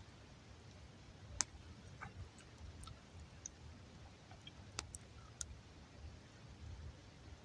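Campfire of damp wood crackling faintly: scattered sharp pops, the loudest about a second and a half in and another near five seconds, over a low steady rumble.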